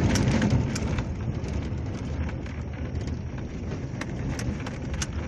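Chinese-made pickup truck driving on a dirt road, heard from inside the cab: a steady low engine and tyre rumble with scattered sharp ticks.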